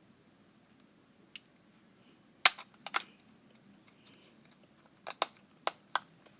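A series of short, sharp clicks in a quiet room, some in close pairs: a faint one just over a second in, the loudest pair about two and a half to three seconds in, then four more spaced out from about five seconds on.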